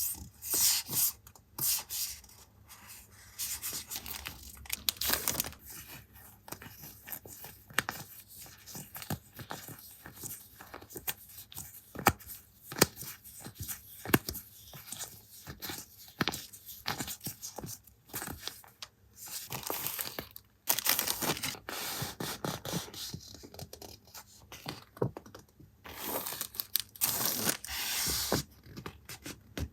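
Paper and stationery handled close to the microphone: rustling and tearing with many small taps and clicks, rising to louder rustling bursts several times.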